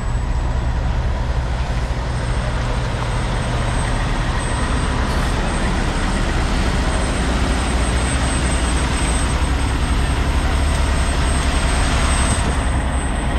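A truck engine running steadily with a continuous low hum, a little louder toward the end.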